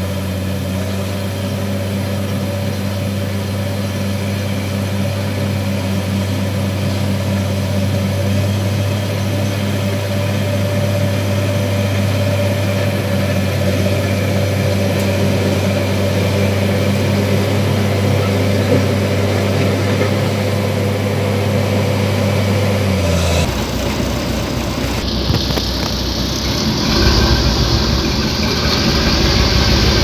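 Crawler bulldozer's diesel engine running with a steady, even hum as the machine moves slowly along a dirt road. About three-quarters of the way through it cuts off suddenly, replaced by the rattling rumble of a vehicle ride heard from inside the cab on a rough gravel road.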